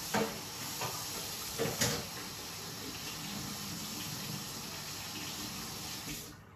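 Butter melting and sizzling in a hot non-stick frying pan: a steady hiss with a few sharp pops and crackles in the first two seconds, dying down near the end.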